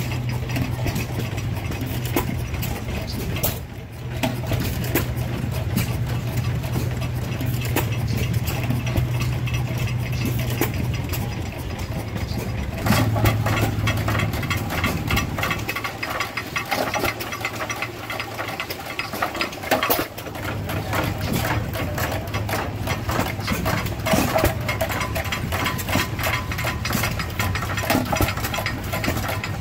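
Engines running, with a steady low hum for the first dozen seconds. Then vintage hit-and-miss stationary engines run with a fast clatter of ticks, and their low firing beat drops out and comes back as they fire and coast.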